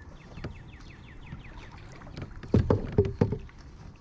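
A bird calls a quick run of short falling notes, about six a second. About two and a half seconds in come a few loud knocks on the plastic kayak, the loudest sounds here.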